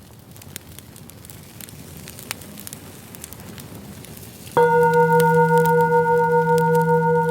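Campfire crackling with small scattered pops, fading in. About four and a half seconds in, a singing bowl is struck and rings on with a steady, layered tone over the crackle.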